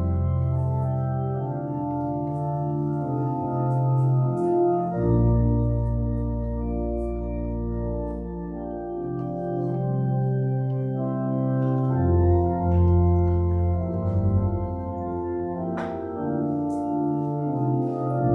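Church organ playing slow, sustained chords over deep bass pedal notes, the harmony changing every second or two.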